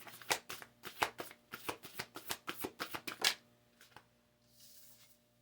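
A deck of reading cards being shuffled by hand: a quick run of crisp card slaps and flicks that stops about three seconds in, followed by a brief soft swish.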